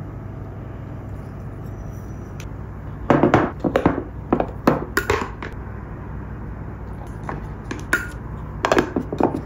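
Tableware clinking and knocking as dishes and utensils are handled, in a quick cluster about three seconds in and a few more knocks near the end, over a steady low hum.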